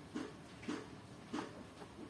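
Faint handling noise of an airsoft pistol being turned over in the hands above its cardboard box: four short, soft knocks and rubs, roughly one every half second.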